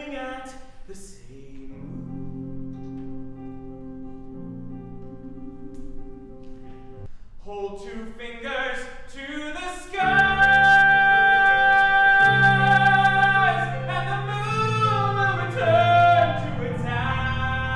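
Singing from a musical-theatre number: several voices holding long notes in harmony, pausing briefly about seven seconds in, then rising into a much louder passage with vibrato about ten seconds in.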